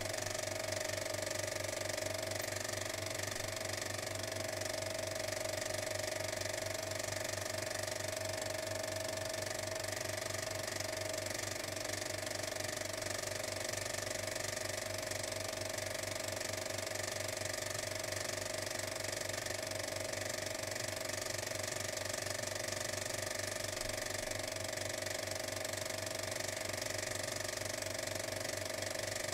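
A machine running steadily: a fast, even rattle over a constant hum, unchanging throughout.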